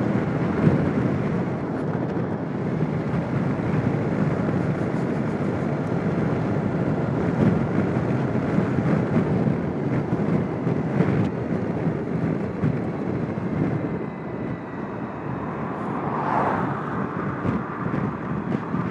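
Suzuki Burgman 650 maxi-scooter under way: a steady rush of wind and road noise mixed with the running engine. A brief higher-pitched swell comes about three seconds before the end.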